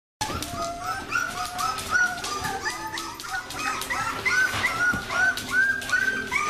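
A litter of puppies whining and yipping, with many short high squeals overlapping one another. It starts suddenly a moment in, with frequent sharp clicks among the cries.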